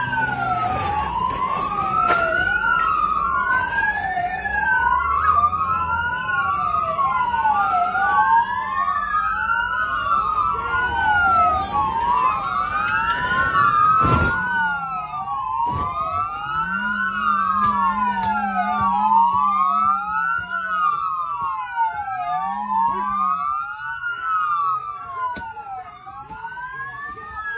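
Several emergency-vehicle sirens wailing at once, their slow rising and falling sweeps overlapping out of step. A lower wavering tone joins for several seconds past the middle.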